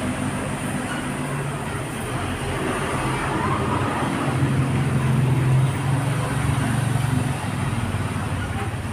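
Low rumble of a motor vehicle engine, swelling about halfway through and easing off near the end.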